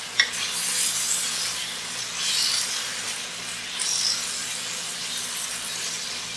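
Chicken pieces sizzling in hot oil and masala in a pan while a wooden spatula stirs and scrapes through them, the hiss swelling with each stir. A single sharp knock sounds just after the start.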